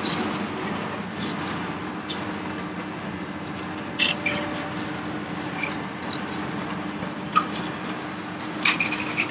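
Hitachi ZX870 excavator's diesel engine running steadily under load as the machine digs and swings a full bucket. A few short, high squeaks come through about four, seven and nine seconds in.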